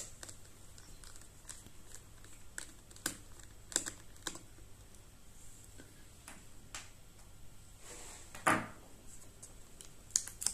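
Faint, scattered small clicks and taps of a Phillips screwdriver working the battery screws in an open laptop chassis, with one louder knock about eight and a half seconds in.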